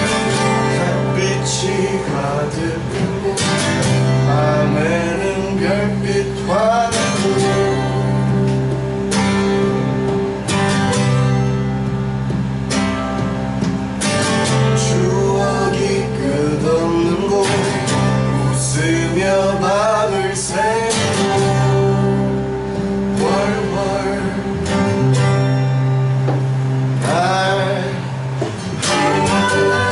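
A song played on acoustic guitar with singing over it.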